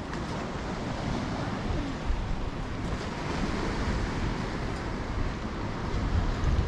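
Strong, gusty wind blowing across the microphone over the steady wash of choppy lake water.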